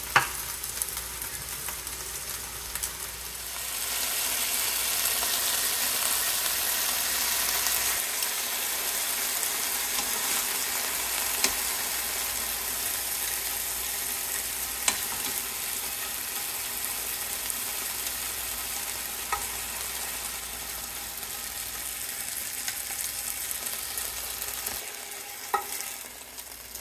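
Chicken breast pieces sizzling in hot oil in a nonstick frying pan, with a few short clicks of metal tongs against the pan. The sizzle grows louder about four seconds in and drops off near the end.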